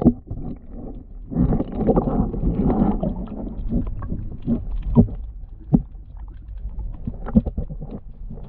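Muffled underwater sound picked up by a camera held below the surface: a rush of moving water about a second and a half in, then scattered sharp knocks as the camera or net is bumped underwater.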